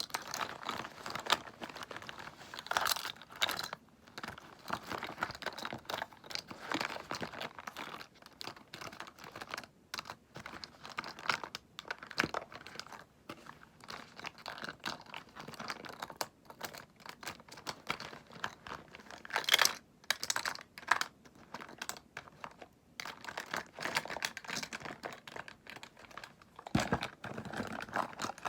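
Close-miked handling of cosmetics and their packaging: rapid tapping and clicking with crinkling, going on without a break.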